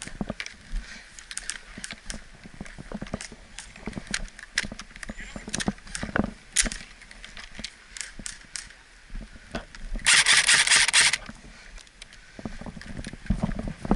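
An airsoft electric gun fires one full-auto burst of about a second, near the end. Before it come scattered sharp clicks and knocks.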